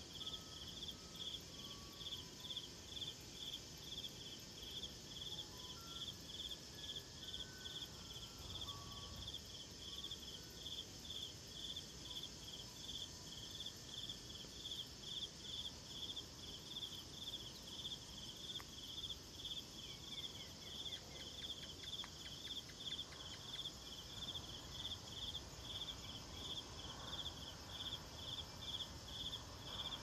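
Insects chirping in an even rhythm, about two high-pitched pulses a second, over a steady high insect hum.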